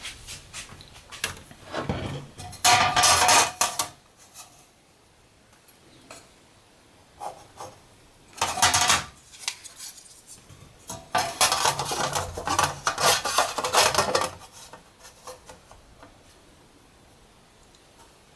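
Metal clattering and scraping in three bouts, the longest near the middle and lasting about three seconds, with some ringing: a sheet of aluminum and metal layout tools being handled and slid on a workbench.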